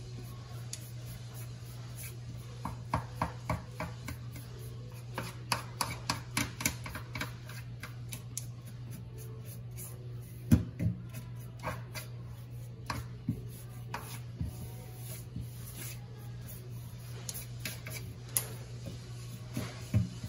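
Toothbrush bristles scrubbing the seam between a stainless-steel sink rim and the countertop, in clusters of short scratchy strokes, with one sharp knock about ten seconds in and a few clicks near the end.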